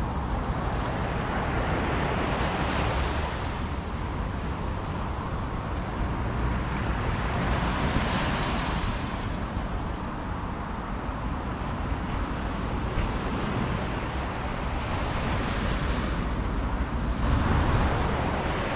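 Surf breaking on the beach and wind buffeting the microphone: a steady rush that swells and eases every few seconds over a low rumble.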